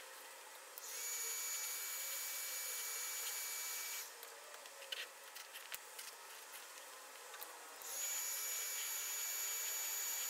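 Electric heat gun blowing hot air onto the drysuit's glued zipper seam: a steady hiss from its fan with a thin high whine, running for about three seconds from about a second in, then switched on again near the end. Between the two spells, rustling and light clicks as the rubberised suit and the old zipper are handled and peeled away.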